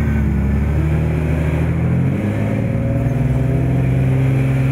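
Four-wheel-drive vehicle's engine running hard as it works through deep ruts, its pitch shifting about two seconds in.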